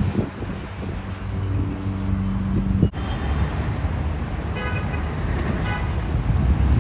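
Street traffic rumbling: passing motor vehicles, with steady engine tones in the first half. There is an abrupt break just before the middle, and two short high-pitched toots a little after it.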